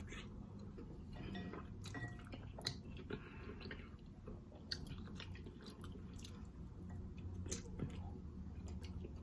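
Close-up wet chewing and mouth smacks of a person eating a sauce-soaked boiled egg, with scattered short sharp clicks.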